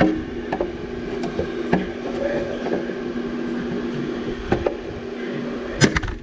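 A steady machine hum with scattered light clicks and taps of tools on metal, ending in two sharp knocks, the loudest sounds.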